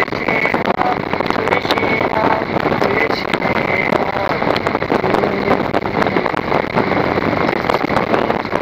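Loud, steady wind noise buffeting the microphone of a motorcycle at highway speed, with the motorcycle running beneath it.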